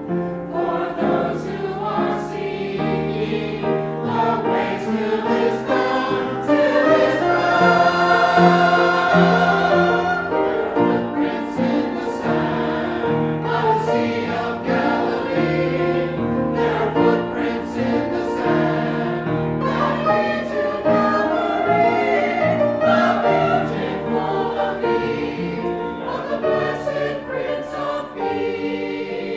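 A choir singing a sacred song in parts, holding long notes.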